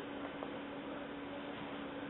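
Room tone: a steady hiss with a faint constant hum, and one small click about half a second in.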